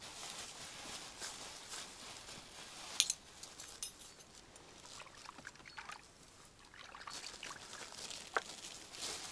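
Water splashing and trickling, with a sharp click about three seconds in and another about eight seconds in.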